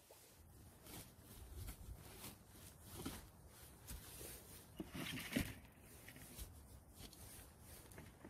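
A stick scraping and raking through dry pine needles and forest-floor duff, making faint, irregular scratches and rustles. The loudest scrapes come about five seconds in.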